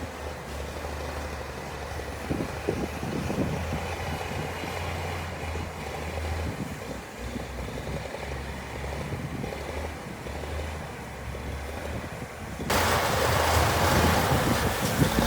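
Diesel engine of heavy earthmoving equipment running steadily, with scattered clanks. Near the end the sound jumps abruptly to a louder, noisier rush.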